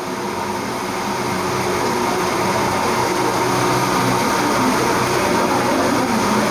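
Steady rushing hum of an electric fan running, with a few steady tones in it, growing a little louder over the first few seconds.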